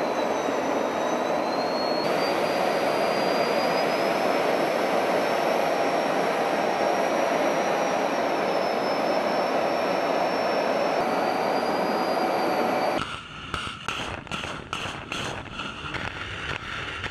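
Steady jet aircraft noise in flight, with a high whine that drifts up in pitch. About thirteen seconds in it cuts to a multiple rocket launcher firing a salvo, with sharp launch blasts about three a second.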